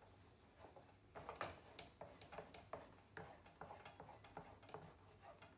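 Faint clicks and scrapes of a spoon against a kadhai, stirring and scraping thickened barfi mixture off its sides, a few irregular strokes a second starting about a second in. The mixture has come away from the pan, the sign that the barfi is done.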